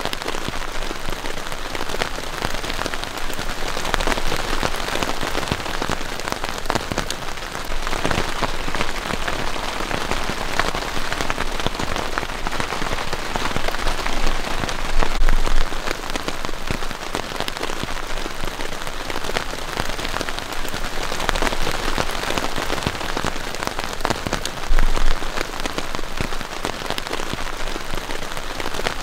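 Heavy rain falling steadily, countless drops hitting a surface, swelling in strength a few times. Two short, louder low bumps come through, one about halfway and one near the end.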